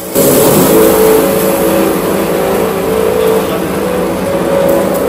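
Small electric atta chakki (flour mill) on a 3-in-1 chaff-cutter machine, running and grinding grain into fine flour: a steady motor hum under a dense grinding noise. It jumps suddenly louder just after the start and then holds steady.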